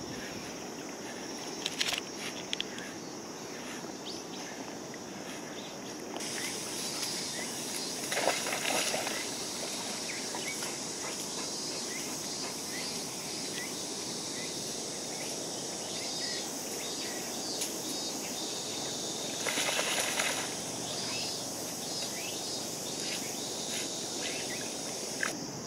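Golden retrievers swimming in a river, the water splashing a few times, over a steady high drone of summer insects.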